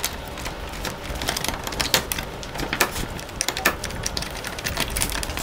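Irregular plastic and metal clicks and knocks from the green latch and handle of a hot-swappable 770 W power supply in a Cisco APIC L3 rack server, worked again and again because the module will not come free.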